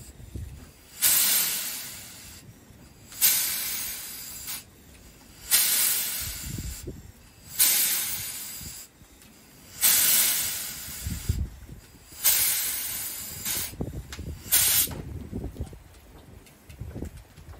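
Fowler steam roller venting steam in sharp hissing bursts, seven in all, about every two seconds, each starting suddenly and fading away over a second or so.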